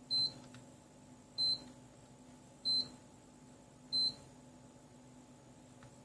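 Electronic beeper sounding four short, high-pitched beeps, evenly spaced about every second and a quarter, over a faint steady low hum.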